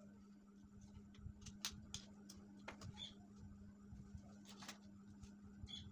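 Faint, irregular clicks and taps of plastic LED bulb and bulb-holder parts being handled, over a steady low hum.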